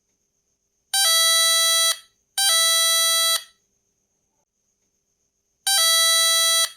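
Homemade NE555 timer doorbell circuit sounding through a small speaker when its push button is pressed: a buzzy electronic tone with many overtones, each about a second long and opening with a brief higher blip. Two tones come close together, then after a pause of about two seconds a third begins near the end.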